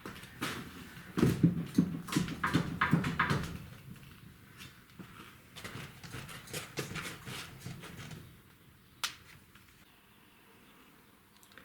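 A series of irregular knocks and clunks of hard objects, loudest in the first few seconds, then lighter clicks and one sharp click near the end.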